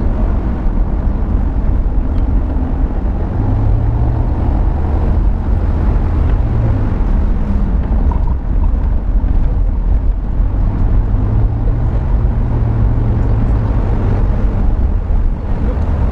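Steady road and engine rumble of a car driving, heard from inside the cabin, with a low engine hum that rises and fades twice.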